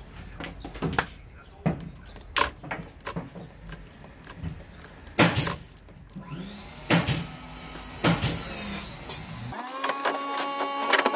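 Irregular clicks and knocks from hands working on a Honda PCX's front brake master cylinder and lever during brake bleeding. Near the end a steady hum with several tones begins.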